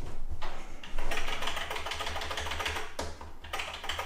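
Computer keyboard keys tapped rapidly and repeatedly, a dense run of clicks with a brief pause about three seconds in, over a low steady hum.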